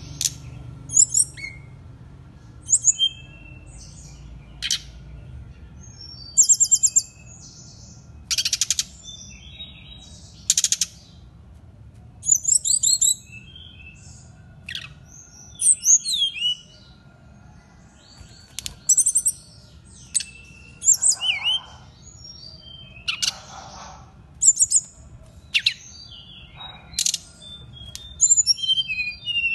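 A caged jungle flycatcher (sikatan rimba dada coklat) singing eagerly: a long run of short, varied high phrases of clear whistles and quick trills, one every second or two, with a few harsher rasping notes around the middle.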